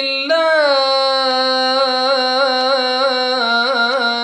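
A man's solo voice chanting Quran recitation in the melodic tajweed style, holding one long drawn-out note on a phrase of the verse. The vowel colour shifts about a third of a second in, and the note wavers in small ornamental turns about three and a half seconds in.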